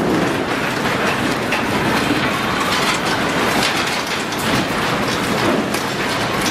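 Continuous rattling and clattering with a low rumble: an elevated station's steel platform roof and structure shaking in an earthquake.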